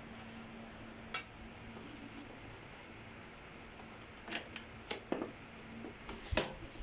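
Metal rods of a butterfly chair frame clinking and knocking as the frame is handled and pressed into shape: a single sharp click about a second in, then a cluster of clicks and knocks over the last few seconds.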